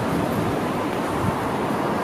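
Low, steady rumble of an electric train approaching from a distance, blended with outdoor noise.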